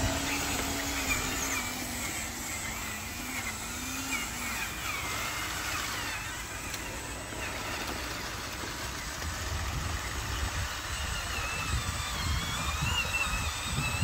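Radio-controlled model dump truck and bulldozer running, a motor hum that wavers in pitch with the throttle, with a low rumble in the second half.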